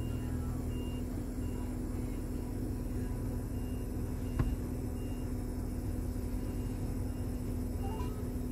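Steady engine and cabin hum inside an automatic sedan, with faint short high beeps every second or so and a single sharp click about four and a half seconds in.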